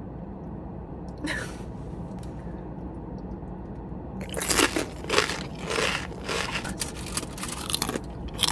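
A cookie being bitten into and chewed close to the microphone: a run of crisp crunches that starts about four seconds in and keeps going.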